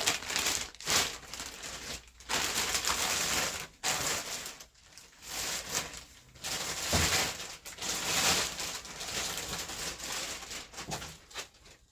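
Packaging crinkling and rustling in irregular bursts as it is handled and pulled open to get at a part.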